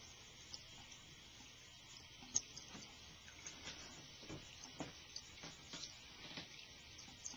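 Cat lapping water from a trickling bathroom sink faucet: a faint steady hiss of running water with small irregular wet clicks of the tongue, more frequent in the second half, and one sharper click a little over two seconds in.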